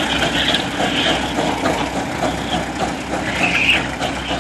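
A 112-year-old steam traction engine working under load, its exhaust chuffing in a steady, rapid beat.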